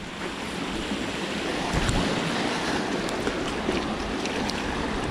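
Steady rush of stream water running over rocks, with a few faint ticks through it.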